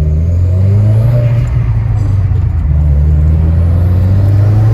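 Subaru WRX engine running steadily at low revs, with its pitch shifting slightly about a second and a half in and again near three seconds.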